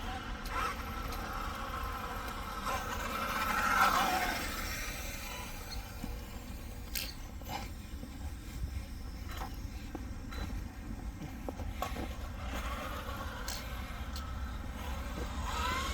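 Losi Super Rock Rey 1/6-scale RC truck's brushless electric motor whining up in pitch as it accelerates, peaking about four seconds in and then winding down. Sharp knocks and scrapes follow as the truck's tyres and chassis hit the concrete, over a steady low rumble.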